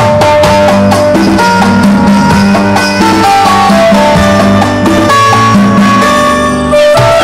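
South Indian nadaswaram ensemble music: a nadaswaram playing a film-song melody in held, gliding notes over thavil and tabla rhythm, with keyboard and guitar accompaniment.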